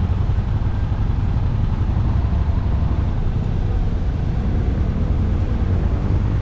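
Touring motorcycle engine running at low speed and idling, a steady low rumble picked up by a camera mounted on the bike.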